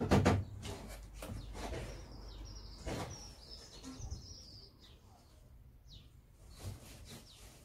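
Knocks and shuffling from someone moving about inside a small loft space through a ceiling hatch, with a loud knock just after the start and a few fainter ones later. Birds chirp in the background, with a run of high chirps in the middle.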